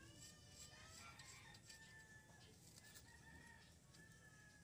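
Near silence: faint background hiss with a few faint, drawn-out far-off tones.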